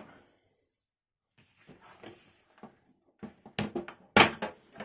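Handling of a desktop PC case: faint rustling, then a quick run of sharp knocks and clatters, the loudest a little past four seconds in.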